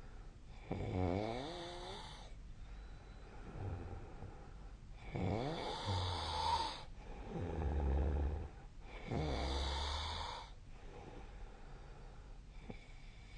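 A sleeping person snoring: three loud snores about four seconds apart, with quieter low rumbles between them.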